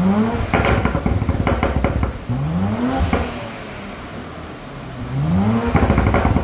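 Audi RS5's twin-turbo 2.9-litre V6 blipped three times. On each lift-off the exhaust crackles and pops in a rapid burst, from a tune's medium crackle-pop setting.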